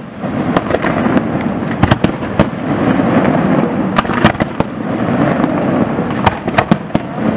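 Aerial fireworks display: many sharp bangs of shells bursting at irregular intervals, several a second at times, over a dense, unbroken din of launches and crackle.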